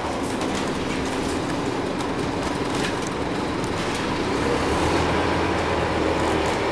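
Interior noise of a Scania OmniCity bus under way: its diesel engine running with a steady low drone, growing a little stronger about two-thirds of the way in, with light rattles and clicks from the cabin fittings.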